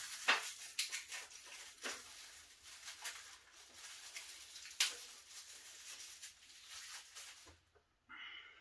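Light clicks and rustles of plastic packaging and statue parts being handled and unpacked, with a sharper click about a third of a second in and another near five seconds.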